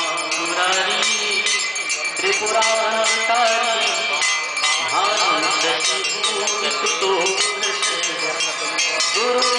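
Bells ringing continuously in rapid strokes, the ritual ringing of a Hindu aarti, over chanted devotional singing.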